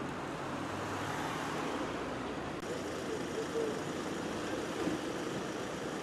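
Steady outdoor street noise: an even rushing hiss of road traffic.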